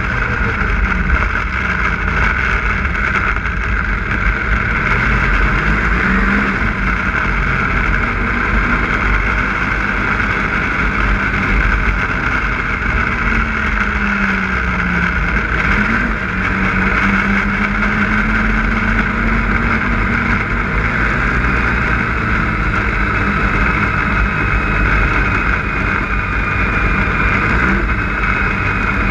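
Snowmobile engine running at trail speed while riding over snow. The engine pitch sags about fourteen seconds in, then picks up again.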